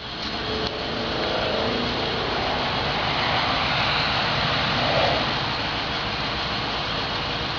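2007 Ford Crown Victoria Police Interceptor's 4.6-litre V8 idling, a steady even noise with no siren.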